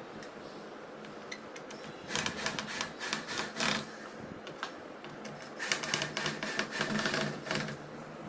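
Cordless drill boring into the edge of a particleboard panel: two bursts of drilling, each about two seconds long, with a rough rasping sound as the bit cuts the chipboard.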